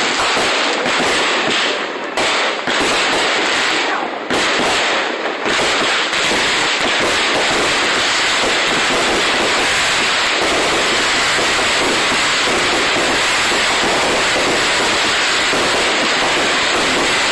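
Fireworks going off in a dense, continuous barrage of bangs and crackles, loud and without a break after the first few seconds.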